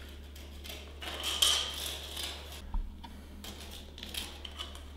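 Pencil scratching marks onto a bare cement screed floor in short strokes, with a few light clicks and taps and one sharper click near the middle, over a steady low hum.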